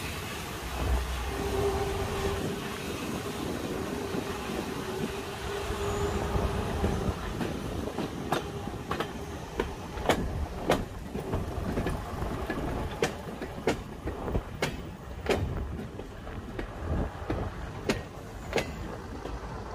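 Green first-generation diesel multiple unit rolling slowly past, with a steady hum for the first several seconds. Then its wheels click over the rail joints, the clicks mostly coming in pairs.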